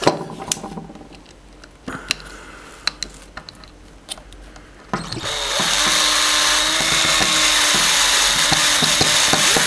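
Small clicks and taps as parts are handled, then about five seconds in an electric drill starts and runs steadily, pre-drilling a pilot hole in a small plastic clip for a screw.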